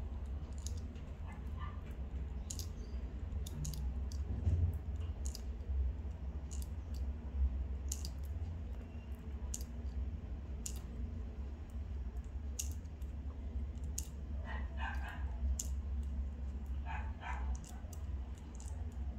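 Airsoft M92 Beretta gas blowback pistol magazine being loaded by hand with 0.23 g BBs: irregular small clicks, one after another, as the BBs are pressed in, over a low steady hum.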